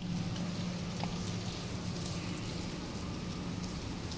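Steady rain falling, with a constant low hum underneath.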